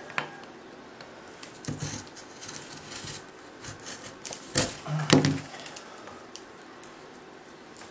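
A fibre-optic cable's plastic jacket being cut and torn open by hand: scattered small clicks and rustles of handling, with a few louder snaps about halfway through.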